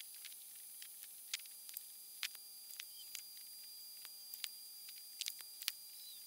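Faint, irregular small clicks and taps of hands working with wires and SATA power connectors, roughly one or two a second, over a faint steady hum.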